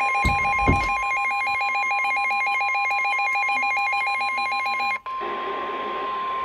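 Steady single-pitch NOAA Weather Radio warning alarm tone, with a rapid warbling electronic alert alarm sounding over it. The warble cuts off about five seconds in, leaving the steady tone alone over hiss. Two low thumps come near the start.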